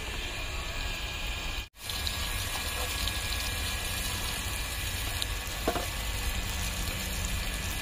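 Coated surmai (kingfish) slices sizzling in hot oil on a flat iron tawa over a wood fire, a steady frying hiss. The sound cuts out for a moment about two seconds in.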